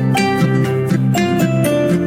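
Upbeat background music: a plucked-string melody, guitar or ukulele, over a bass line.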